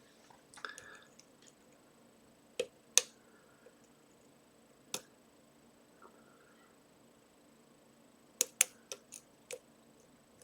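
Sharp metallic clicks of a lock pick and tension wrench working the pin stack of a Trioving pin-tumbler lock with trampoline-spool drivers. The clicks come singly at first, the loudest about three seconds in, then in a quick run of about five near the end.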